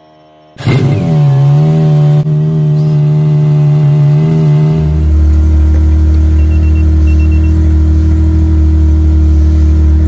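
BMW E30's engine starting: it catches about half a second in with a quick rev, then runs at a fast idle. About five seconds in the idle drops to a lower, steady idle.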